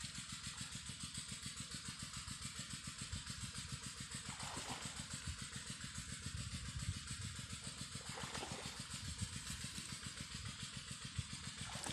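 A small engine running steadily at low speed, its exhaust putting out an even, rapid beat.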